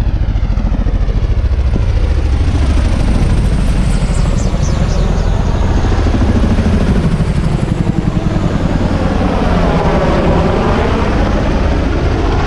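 Several military helicopters flying low overhead, their rotors thudding in a loud, rapid, steady pulse. The tone sweeps as one passes over, about ten seconds in.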